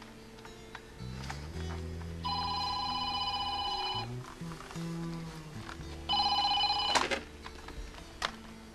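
A telephone ringing twice with a trilling ring, the second ring shorter and cut off by a click as the handset is picked up, over background music.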